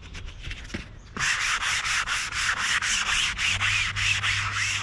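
Dry guide coat applicator pad rubbed back and forth over sanded body filler, light scuffing at first and then, from about a second in, quick brisk strokes, about four a second. The powder is being laid on as a guide coat to show up low and high spots before block sanding.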